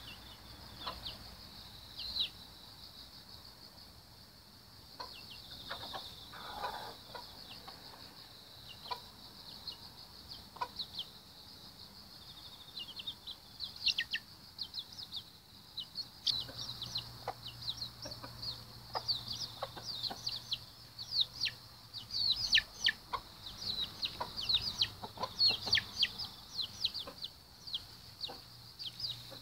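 Chicks peeping: many short, high chirps that each slide downward, coming much thicker in the second half, with a hen clucking low now and then. A steady high drone runs underneath.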